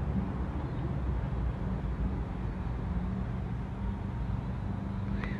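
Strong gusty wind buffeting the microphone, a steady low rumble, with a short high chirp near the end.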